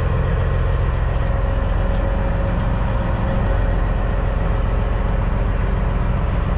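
CAT C15 inline-six diesel engine of a Peterbilt 379 running steadily at low revs, heard from inside the cab, as the truck backs up with B-train trailers. It is a deep, even rumble with a faint steady whine above it.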